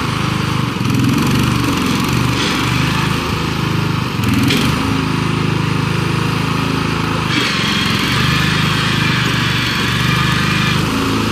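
Bolens G14 lawn tractor's 14-horsepower Tecumseh engine running steadily as the tractor drives across the lawn. From about seven seconds in until near the end, a brighter, hissier layer rides on top of the engine.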